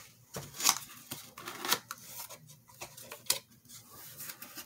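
Corrugated cardboard box being handled and its flaps pulled open: scattered scrapes and rustles of cardboard, with three sharp clicks standing out.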